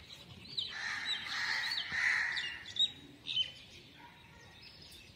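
Small birds chirping: a quick string of short, sharp chirps over the first three seconds or so, then quieter.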